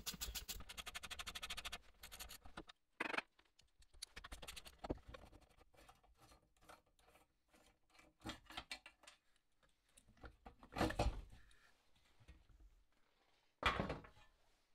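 A ratcheting screwdriver clicks fast and evenly for about two seconds as the screws holding the radiator fan motor are backed out. Then come scattered light metal clicks and scrapes, with three louder knocks, the last near the end as the fan and motor are set down on the work mat.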